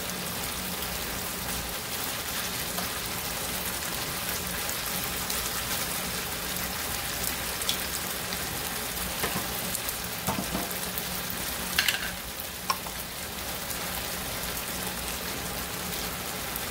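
Thin slices of marinated beef sirloin sizzling steadily as they fry in oil in a skillet, with a few sharp clicks of metal tongs against the pan as the pieces are turned, the loudest about twelve seconds in.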